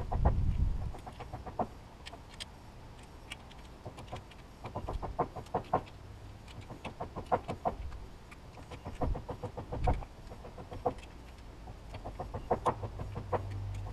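Chickens clucking: short clucks in quick bursts, coming and going.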